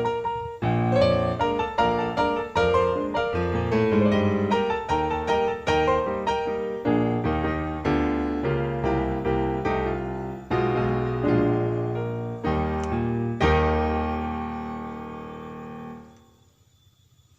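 Background piano music with a run of notes, ending on a held chord that fades and cuts off abruptly about three seconds before the end, leaving near silence.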